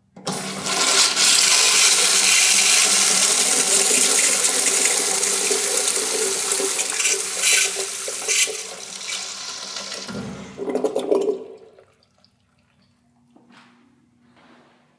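Crane Manhattan urinal flushing: a loud rush of water starts suddenly, runs for about ten seconds and tapers off, with a brief lower surge about eleven seconds in as the flush ends.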